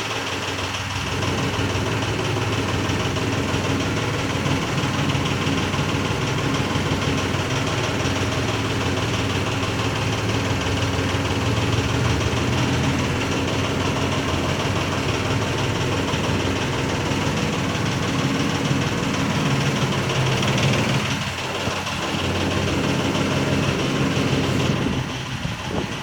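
Ford Explorer engine running steadily at idle, making a strange noise that the owner wants explained. The level dips briefly about three-quarters of the way through.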